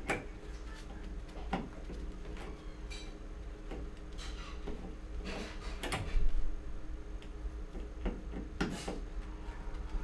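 Irregular clicks and scrapes of a multitool's screwdriver turning a screw into a wall light switch, with a louder knock about six seconds in.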